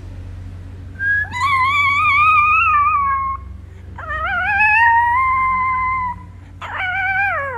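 A small Chihuahua howling: three long, wavering howls, the last one falling in pitch at the end.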